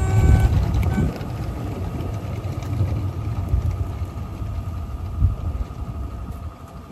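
Mamod Boulton model diesel locomotives passing close, their motors giving a steady whine that cuts off about half a second in. Then the train's wheels roll along the garden-railway track, fading as it draws away, with a single sharp knock about five seconds in.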